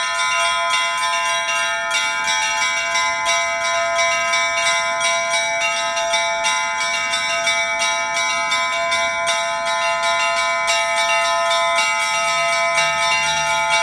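Russian Orthodox church bells ringing in a continuous peal, with many bells struck in quick succession, several strikes a second, over the sustained ring of the larger bells.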